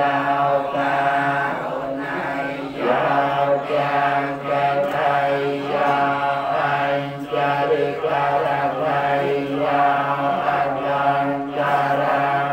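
Buddhist monks chanting blessing verses together in unison, a steady recitation on one held low pitch with an even syllable rhythm and no pauses.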